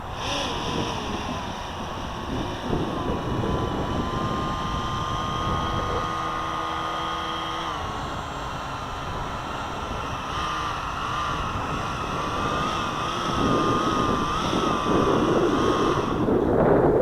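Sky Surfer Pro RC plane's electric motor and propeller whining in flight, the pitch wavering and stepping up and down with throttle. The whine stops about a second before the end. Wind rumbles on the microphone underneath.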